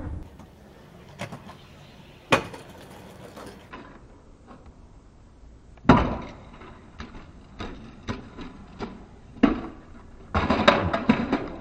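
Stunt scooter knocks and clacks on hard ground: a few sharp hits several seconds apart, lighter ticks between them, and a short run of rattling clatter near the end.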